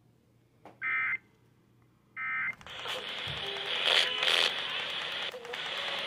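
Two short buzzy data bursts about a second and a half apart, the end-of-message signal of an Emergency Alert System weather-radio broadcast. Then, about two and a half seconds in, louder, hissy radio audio comes in.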